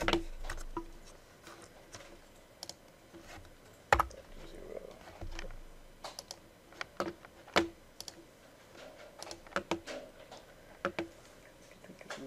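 Irregular clicks and taps of a computer mouse and keyboard during desktop work, with a louder knock about four seconds in.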